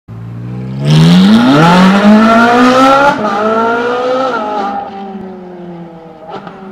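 A racing car's engine accelerating hard, its pitch climbing for about two seconds, then sliding down and fading as the car passes and draws away.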